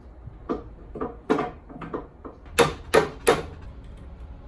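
A series of about seven sharp knocks and clacks from metal parts of a lathe headstock and its pulley being handled, the loudest three coming in quick succession about two and a half to three and a half seconds in.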